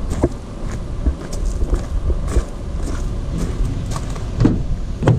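Footsteps on gravel with a steady low rumble, then a couple of louder clunks near the end as the Ford Transit's driver door handle is pulled and the door opened.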